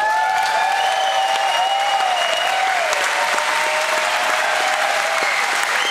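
Concert audience applauding and cheering, with long whoops and whistles over the clapping.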